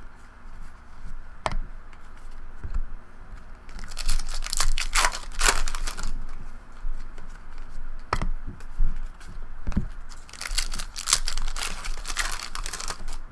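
Foil trading-card pack wrapper being torn open and crinkled, in two crackly stretches, with a few single clicks between them.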